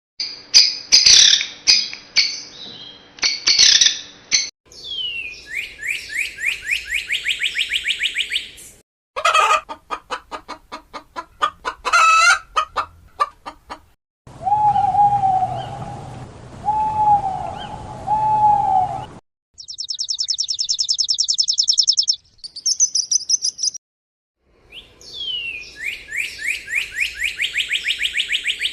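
A run of short, separate clips of birds calling, cut one after another. They include fast trills of repeated chirps, three matching calls about a second apart near the middle, and a high rapid trill.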